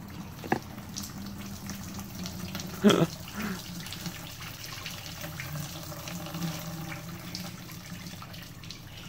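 Dirty fuel and diesel flush running in a steady stream out of the bottom of the VW Beetle's fuel tank, carrying water and debris. A short, sharp sound stands out just before three seconds in.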